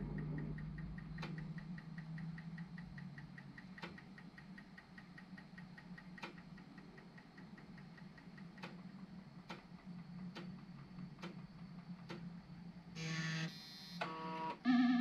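Amiga floppy disk drives reading and writing during an XCOPY disk copy: a steady motor hum with a sharp head-step click about once a second as the heads move from track to track. Near the end come two short buzzing tones as the copy finishes.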